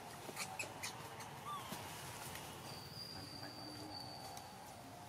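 Soft sounds of a baby monkey being handled on dry leaf litter: a few sharp crackles of leaves in the first second, then a brief faint squeak about one and a half seconds in. A thin steady high whistle runs through the second half.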